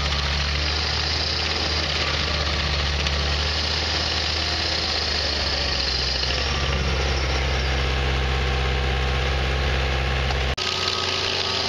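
Walk-behind stump grinder's engine running steadily under load while its cutter wheel chews into a tree stump, with a dense hiss of grinding and flying chips over the engine note. About ten and a half seconds in the sound breaks off for an instant and picks up again with a different, lower engine tone.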